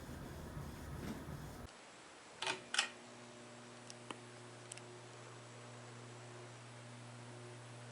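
A noisy rush cuts off suddenly, then a switch clicks twice and a ceiling fan's motor starts with a steady low hum, with a few faint ticks.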